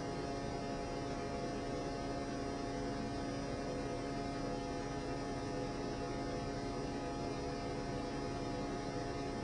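Steady electrical hum with background hiss, made of many unchanging tones layered on top of each other.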